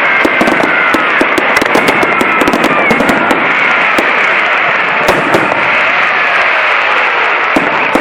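Firecrackers going off in a dense, continuous crackle of rapid overlapping pops, with thin whistling tones gliding in pitch now and then.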